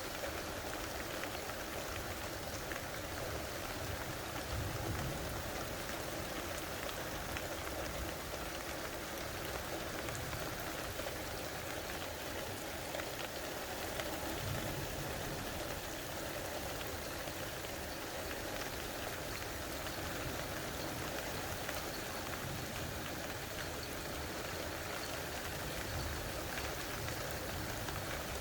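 Steady rain falling, an even hiss throughout, with a couple of brief faint low rumbles.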